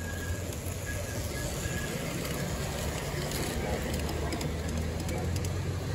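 G-scale model freight train with bi-level auto rack cars rolling past close by: a steady low rumble of wheels on track with scattered light clicks.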